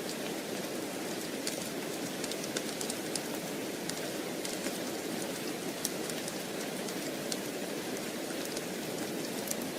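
Steady rain hissing, with scattered sharp crackles of a wood fire burning in a fireplace.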